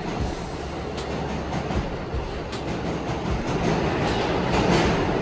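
Stainless-steel subway train running past a platform in an underground station: a steady noise of wheels on rails with occasional sharp clicks.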